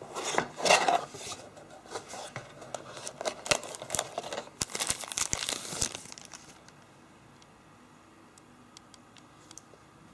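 A cardboard phone box being opened and the handset lifted out of its packaging: rustling, scraping and sharp clicks of cardboard and wrapping for about six seconds, then only a few faint ticks as the phone is handled.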